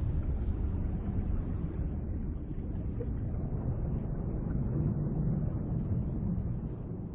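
Low, steady rumble of ocean waves and surf, slowly fading near the end.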